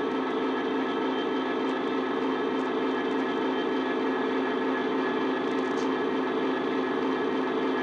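Model Class 66 locomotive's DCC sound decoder playing the recorded EMD two-stroke diesel engine through the model's small speaker: a steady, even engine drone.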